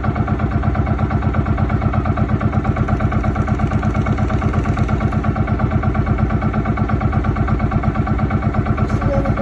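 Engine of a small motorized outrigger boat (banca) running steadily while under way, with a fast, even beat that does not change.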